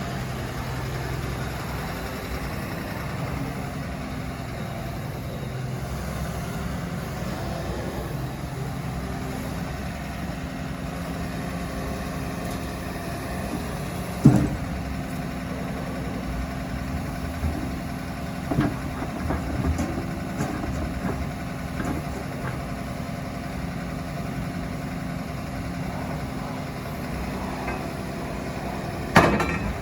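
Diesel engine of a Hyundai HW140A wheeled excavator idling steadily. There is a sharp knock about halfway through and another just before the end, with a few lighter clunks in between.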